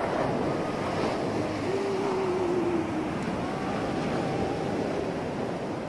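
Steady wash of ocean surf, with a faint wavering tone drifting in and out over it.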